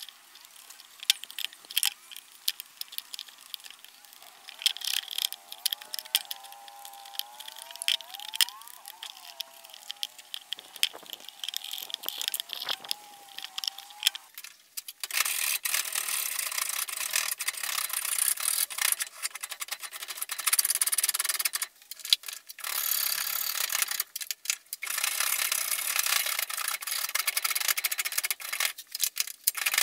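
A hand file scraping across plum wood in short strokes. About halfway it changes to louder, continuous back-and-forth rasping as a hand tool works the wood of a hatchet handle blank held in a vise, with a few brief pauses.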